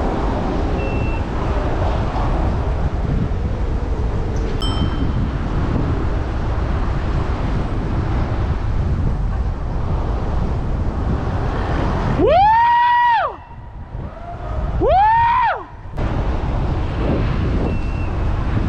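Steady low rumble and wind noise on the microphone of a moving vehicle in city traffic. Near the end two short whooping tones, each about a second long, rise, hold and fall.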